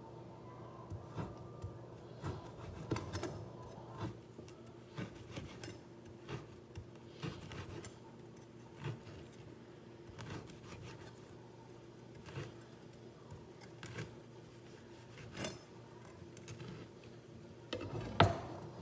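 Knife cutting food on a cutting board: irregular knocks and scrapes, about one or two a second, with a sharper knock near the end, over a steady low hum.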